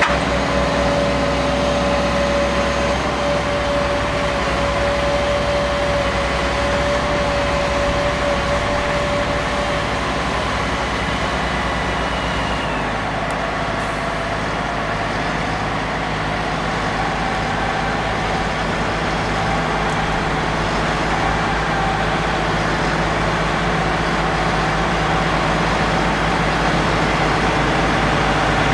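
A Fendt 936 tractor's diesel engine and its trailed wood chipper run steadily, with no wood being fed. A steady whine fades out about ten seconds in, and the machine's hum changes pitch slightly a couple of seconds later.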